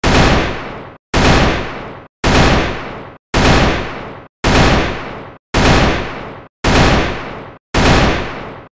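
AK-47 gunshot sound effect repeated about once a second, eight times in a row. Each is a sharp report with about a second of fading echo, cut off abruptly just before the next begins.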